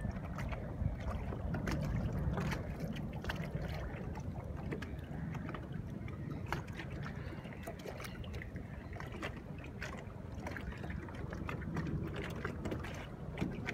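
Water lapping against the hull of a small boat, with many small clicks and splashes over a low steady rumble.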